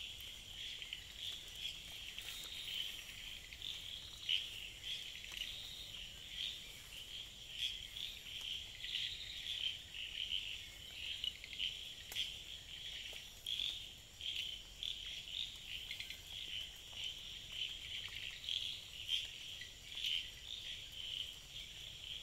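Dense night chorus of calling animals: high-pitched and unbroken, many calls pulsing and overlapping.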